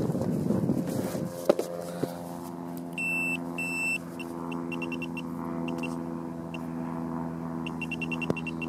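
Handheld metal-detecting pinpointer probe switched on with two short high beeps about three seconds in, then giving runs of rapid pulsing beeps as it is worked through loose soil in the dug hole, signalling a small metal target close by. Scraping of the probe in the soil comes early on, and a steady low hum runs underneath.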